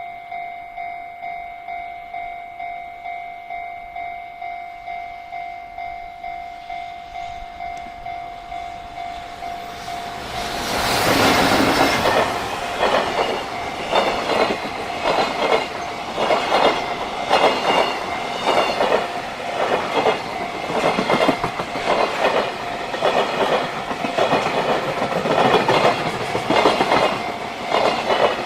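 Japanese level-crossing warning bell ringing in steady pulses, about two a second. About ten seconds in, a JR Freight freight train arrives and passes at speed, loud, with a rapid rhythmic clatter of wheels over rail joints that drowns out the bell.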